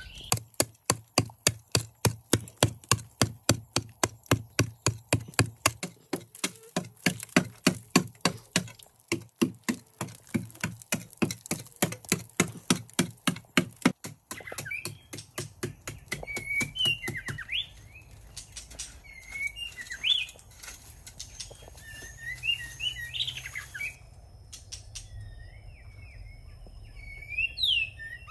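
A digging tool chopping into a hard red clay bank in a steady rhythm of about two to three strokes a second, stopping about halfway through. After that, small birds chirping.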